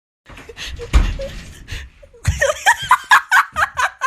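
A person laughing hard in quick repeated bursts, about four a second, starting a little after two seconds in; before it, rustling and a thump about a second in.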